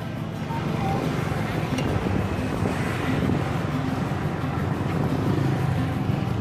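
Steady road-traffic noise, engines running, with wind buffeting the microphone.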